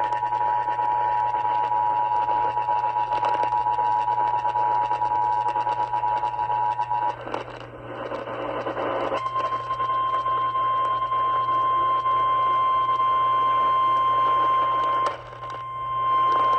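Emergency Alert System two-tone attention signal, two steady tones sounding together over a radio receiver with crackling static; it cuts off about seven seconds in. After a short break a single steady 1050 Hz NOAA Weather Radio warning alarm tone follows. It drops out briefly near the end and then resumes. The tones herald a severe thunderstorm warning.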